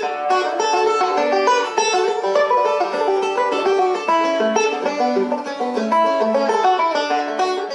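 Intro music: fast plucked banjo picking in a bluegrass style, rapid notes throughout, fading out just after.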